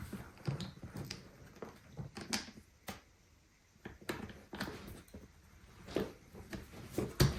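Irregular clicks, knocks and short scrapes of hand work on a suitcase wheel and its hub as the axle pin is worked out, with a sharp knock near the end.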